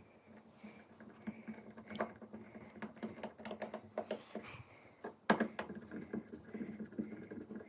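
Phillips screwdriver unscrewing the mounting screws of a wall light switch: scattered light clicks and metal scrapes, with one sharper click a little past five seconds in.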